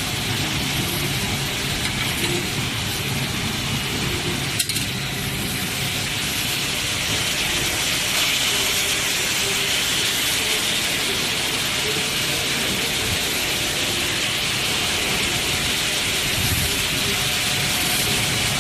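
Automatic screw cold heading machines running: a steady, dense mechanical clatter with a strong high hiss, and small metal screws clinking as they drop into the collection tray. One sharp click stands out about four and a half seconds in.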